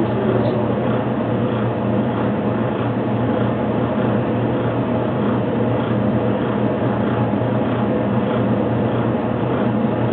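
Steady low mechanical hum with an even hiss over it, heard through a security camera's narrow-band microphone.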